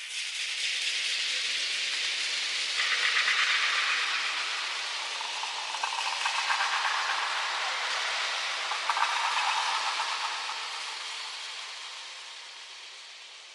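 A processed hissing, crackling noise texture for horror sound design: it fades in, swells louder three times, then slowly fades away.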